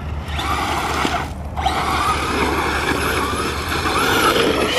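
RC car driven hard on bare dirt: its motor whines, rising and falling with the throttle, and its tyres churn the dirt. The sound drops out briefly about a second and a half in, then picks up again.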